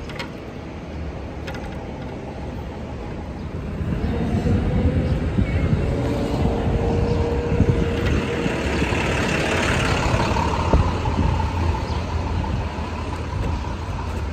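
City street traffic noise heard while riding an electric bike: a steady rumble that grows louder about four seconds in, with a faint steady whine through the middle.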